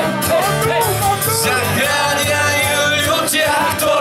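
Live band playing a Slovak rock song on acoustic guitar and electric bass, with a steady beat and a voice singing.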